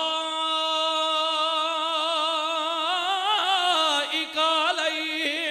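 A man's voice chanting Quranic Arabic in one long held note for about three seconds, which then wavers up and down and breaks into shorter melodic turns near the end.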